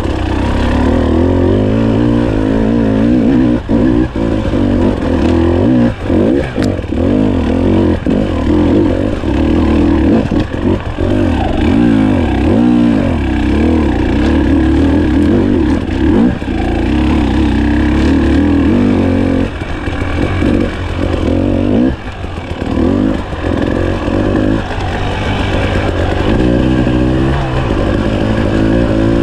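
KTM 300 XC-W TPI fuel-injected two-stroke dirt bike engine under way on a rough trail. Its pitch climbs and falls repeatedly with the throttle, with several brief drops where the throttle is closed.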